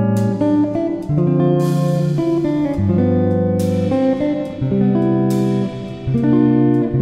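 Background music: a plucked guitar tune, one note or chord after another.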